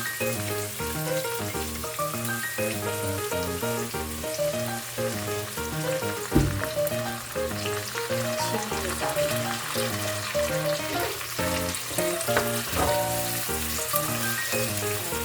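Food frying in a pan with a steady sizzle, under background music. There is a single knock about six seconds in, the loudest moment.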